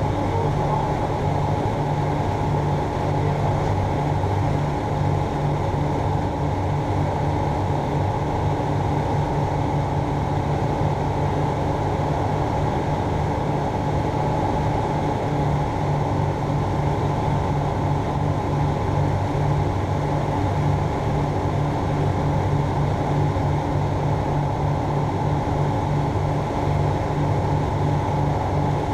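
Aerodreams Land Africa ultralight's Rotax engine and propeller droning steadily in flight, heard from inside the cockpit.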